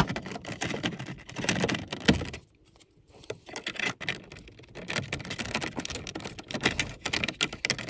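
Hard plastic dash trim clicking, rattling and scraping in quick irregular bursts as a BMW E36 climate control unit is worked into a tight dash bezel opening, with a short pause about two and a half seconds in.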